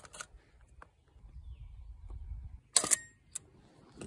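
Mamiya RB67 medium-format camera being worked by hand: a sharp click as the shutter is released right at the start, then handling rumble and a second, louder brief mechanical clack just under three seconds in.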